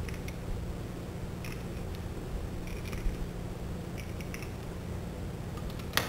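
Needle-nose pliers clicking and scraping on stranded copper wire as two stripped wire ends are twisted together, with a sharper, louder click near the end, over a steady low hum.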